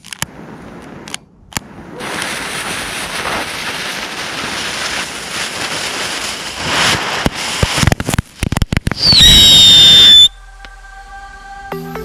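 Small ground firework going off: a fountain of sparks hissing for several seconds, then a quick string of sharp cracks, then a loud whistle that dips slightly in pitch, holds, and cuts off suddenly.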